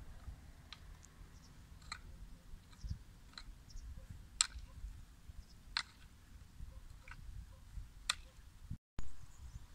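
Sharp clicks, about eight of them at irregular intervals, over a faint low rumble.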